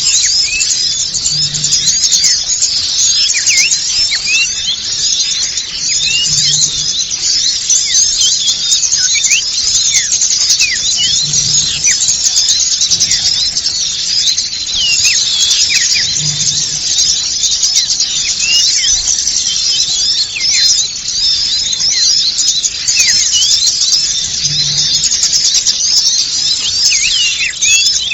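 Dense, unbroken chorus of many small birds twittering and chirping, a rapid overlapping stream of short, high, mostly falling calls. This is a bird-lure (pikat) recording made to draw small wild birds in.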